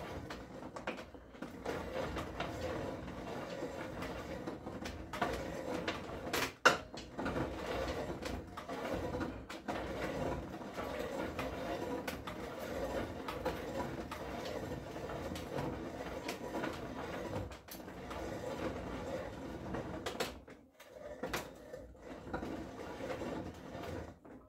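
Reamer being turned by hand inside a steel rifle barrel bore, a steady grinding scrape of metal on metal with a wavering pitch. There is one sharp knock partway through, and the cutting breaks off briefly near the end.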